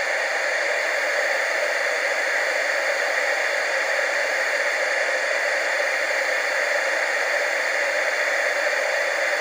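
Television static sound effect: a steady, even hiss of white noise without change.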